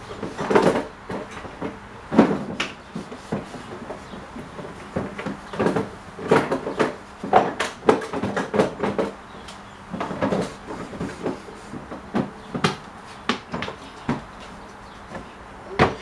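Wooden birdhouse being handled and wiped down with a rag: a string of irregular wooden knocks and scuffs, with cloth rubbing on the stained wood.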